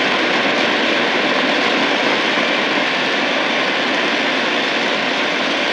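Steady, loud hiss of static from a Tecsun PL-880 shortwave receiver tuned between stations in the 41-metre band, with no signal coming through.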